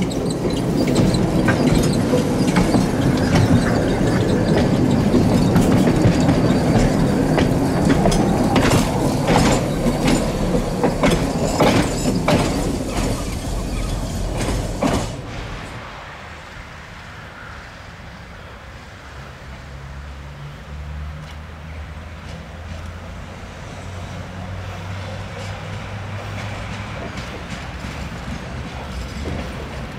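KTM-5 (71-605) tram running close by on heavily worn track: a loud rumble with a string of sharp clicks and knocks from the wheels on the rail joints, thickest about eight to fifteen seconds in. About halfway the sound drops suddenly to a quieter scene of a Tatra T3A tram on curved track, with a low steady hum.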